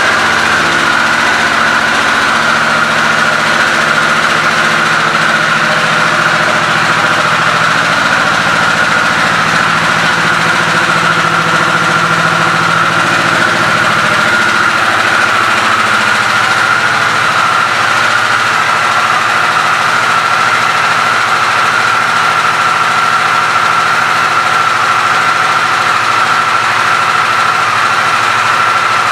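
2022 Harley-Davidson Sportster S's Revolution Max 1250T V-twin idling steadily just after being started, with a steady high whine over the idle that sinks slightly in pitch.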